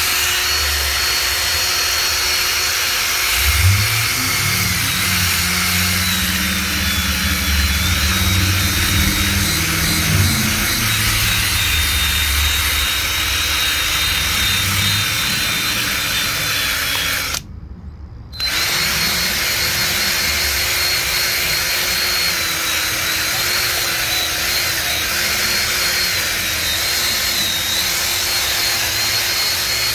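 Handheld power tool, like a drill or grinder, running continuously while cleaning the cylinder heads of a 5.3 L V8; its pitch wavers and dips as the load changes. A lower drone joins about four seconds in and fades out by about twelve seconds, and the tool stops for about a second just past halfway.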